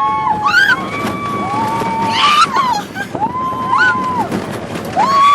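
Roller coaster riders screaming, four long wails one after another that each rise and fall, over a steady rush of wind and coaster noise.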